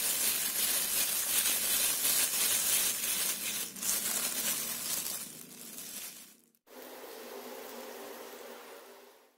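Thin plastic bag crinkling loudly as hands roll cimol dough balls inside it. After a sudden cut about six and a half seconds in, a quieter steady sizzle of the cimol balls frying in oil.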